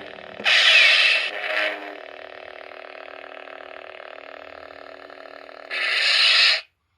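Force FX lightsaber (Obi-Wan Kenobi Episode III, Black Series) playing its sound effects through its built-in speaker: a steady electronic blade hum, broken by two loud effect bursts about half a second in and a third one near the end, after which the sound cuts off suddenly.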